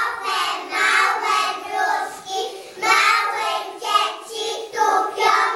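A group of young children singing a song together, in sung phrases of about a second each.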